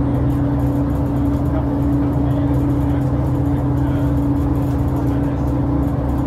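Scania L94UA articulated bus's diesel engine heard from inside the cabin, a steady drone holding one even note with road and body noise underneath.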